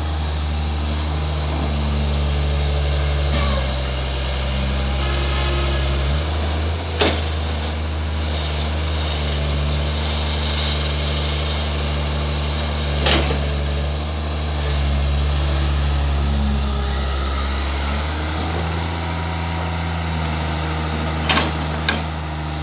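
Komatsu hydraulic excavator's diesel engine running under changing load as it digs and swings sand, its pitch and level shifting every few seconds with a faint high whine gliding up and down. Three sharp knocks, each several seconds apart, as the bucket works and sand is dumped into the truck.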